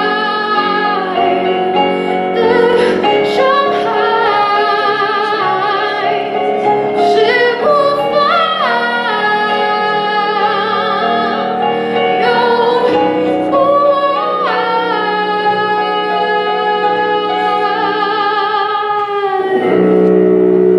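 A woman singing a slow Mandarin pop ballad into a microphone over instrumental accompaniment, holding long notes with vibrato. Her voice stops near the end on the song's last line while the accompaniment holds a chord.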